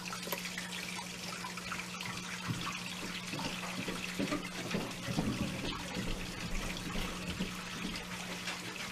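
Soft rustling and crinkling of paper and string as hands tie a small tag onto a paper treat box, with small crackles clustered in the middle. Under it runs a steady background hiss with a low hum.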